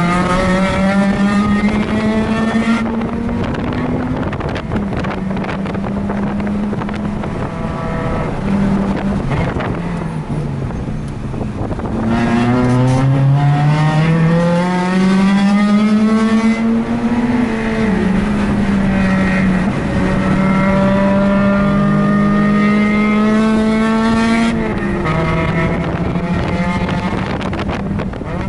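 Mazda RX-8's two-rotor rotary engine heard from inside the car at track speed. It revs up through the gears, drops in pitch about ten to twelve seconds in as the driver comes off the throttle, then climbs hard again and holds high before dropping near the end. Wind buffets the microphone throughout.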